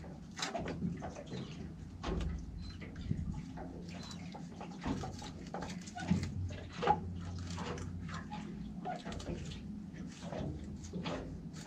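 Bait knife filleting a slimy mackerel on a cutting board: irregular short scrapes, cuts and taps as the blade works along the backbone, over a low steady hum.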